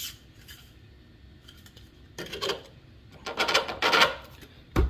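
3D-printed plastic rocket body tube scraping and rubbing as it is forced down over the motor and fin section, a tight fit that needs force, with a sharp knock near the end as it is pushed home.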